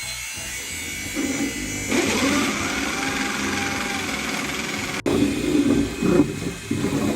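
Electric drill boring a row of holes into the wooden edge of a door to form the pocket for an electronic lock body. The motor runs steadily, with a brief break about five seconds in.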